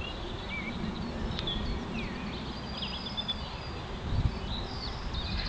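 Small songbirds chirping and whistling in short, quick notes over a low, steady rumble, with one dull bump about four seconds in.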